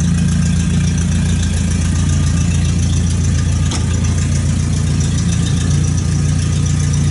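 Engine of a Fairmont A4-E railroad gang car idling steadily, with a single light click about three and a half seconds in.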